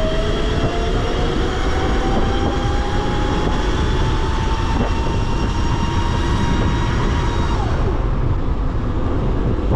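Razor RSF650 electric dirt bike's motor and chain drive whining while riding, the whine climbing slowly in pitch as the bike gathers speed, then dropping away about seven and a half seconds in. Heavy wind rumble on the microphone underneath.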